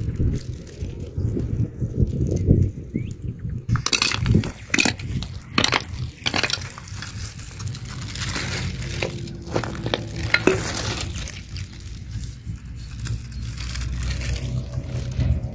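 Pebbles and stones clicking and crunching against one another in a run of sharp clicks, thickest about four to seven seconds in, over a steady low rumble.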